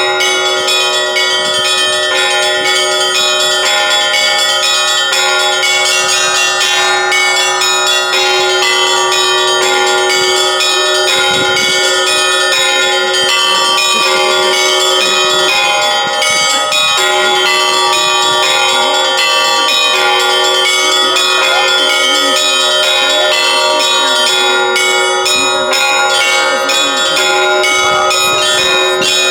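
Russian Orthodox church bells rung by one bell-ringer: a dense, continuous peal, with many small bells struck in quick rhythm over steady, ringing lower bell tones.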